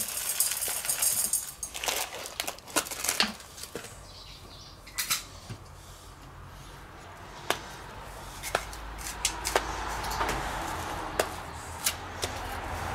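Crumbly hazelnut brittle poured from a carton into a stainless steel bowl, a rattling hiss in the first second and a half. Then scattered sharp clicks and knocks as a plastic food container with a clip-on lid is handled.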